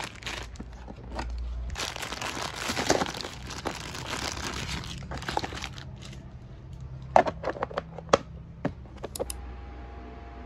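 Plastic snack wrappers crinkling as packs are handled and sorted into a plastic bin, followed by several sharp taps and clicks as packs are set down, about seven to nine seconds in.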